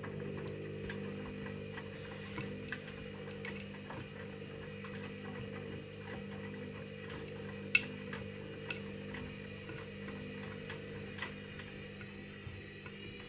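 Hoover washing machine on a Cotton 30° cycle, its drum motor running a steady hum during a gentle intermediate spin. Scattered light clicks and ticks sound throughout, with one sharper click about eight seconds in.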